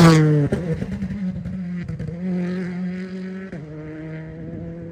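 Rally car passing close at speed, its engine note dropping sharply in pitch as it goes by. It then fades as the car carries on up the stage, with a brief break in the engine note about three and a half seconds in.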